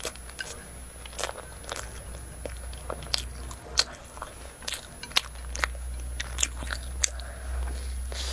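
Close-miked eating: chewing and biting into a crumbly, floss-coated pastry ball, with irregular crisp crackles and moist mouth clicks. A steady low hum runs underneath.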